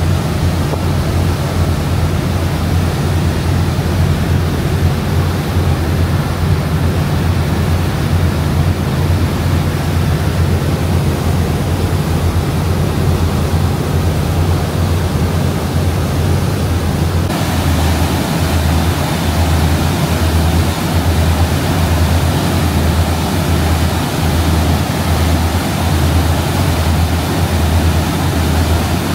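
Fast Cat M16 ferry under way: a steady low engine drone mixed with the rushing of its churning wake. About 17 seconds in the sound shifts abruptly, turning hissier with a pulsing low hum.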